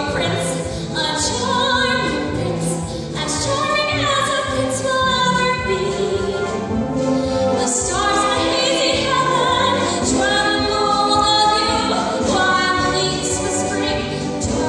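A woman singing a musical-theatre song over instrumental accompaniment. Her held notes waver with vibrato.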